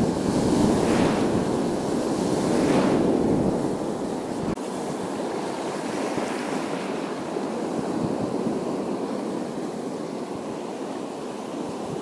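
Small sea waves washing and breaking over shoreline rocks, with wind rumbling on the microphone. The wash surges a few times early on, and about four and a half seconds in the low wind rumble cuts off suddenly, leaving a steadier, quieter wash of surf.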